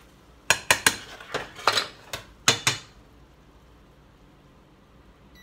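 Pots, pans and utensils clanking on a stovetop: a quick run of sharp metal knocks and clinks lasting about two seconds.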